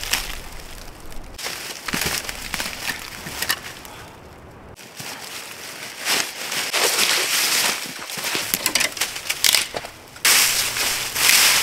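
Crunching and crackling of dry twigs and forest litter, in several irregular bouts of dense clicks and rustle with quieter gaps between them.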